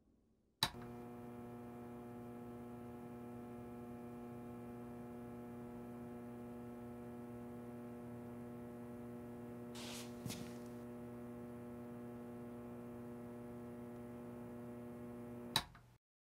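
Steady electrical hum with a buzzy stack of overtones. It switches on abruptly with a click just under a second in, has two short clicks a little past halfway, and cuts off with a click near the end.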